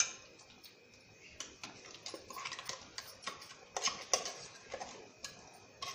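Steel spoon clinking and scraping against a steel mixer jar and pot while scooping ground masala into sambar: a run of light irregular metallic ticks and taps that begins after about a second and a half.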